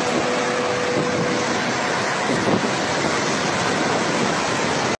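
Tornado wind rushing in a loud, steady noise that buffets the phone's microphone, with a steady whistle-like tone for the first second and a half.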